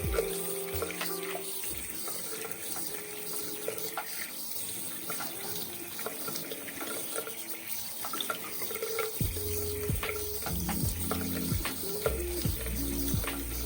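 Water running from a tap into a sink, a steady hiss with small clicks and splashes, over soft background music whose bass line comes in about nine seconds in.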